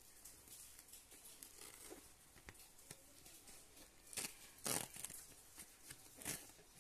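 Blister packaging of a DDR2 RAM module being pressed and pried open by hand: faint crinkling, with a few louder crackles in the second half as the module is pushed out.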